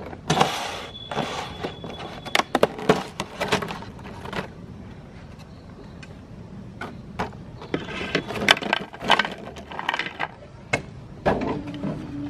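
Crisp cookie crunching and cracking in two bouts of sharp, irregular crackles. A steady low hum starts near the end.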